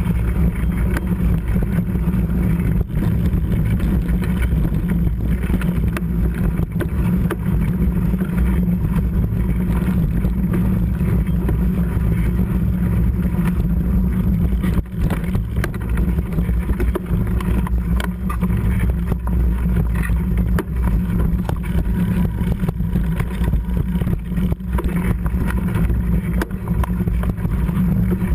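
Mountain bike riding over a wet gravel and rock trail, heard from a camera mounted on the bike: a steady low rumble of tyres on the trail and wind on the microphone, with occasional sharp knocks and rattles from the bike.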